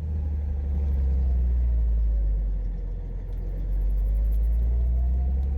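A 1988 Jeep Comanche pickup driving, a steady low rumble that starts abruptly, with a faint whine that dips and then rises in pitch.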